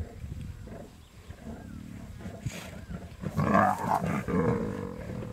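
Lions growling while feeding on a buffalo carcass, with one much louder growl about three seconds in that lasts about a second and a half.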